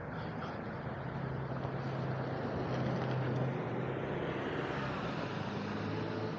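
Motor vehicle running nearby: a steady low engine hum with a haze of road noise that grows brighter past the middle.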